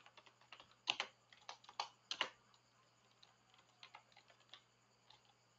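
Faint typing on a computer keyboard: irregular key clicks, a few louder ones in the first two and a half seconds, then lighter, sparser taps.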